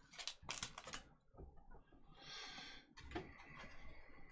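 Hands handling a small cardboard trading-card box: faint light taps and clicks, with a short rustle about two seconds in.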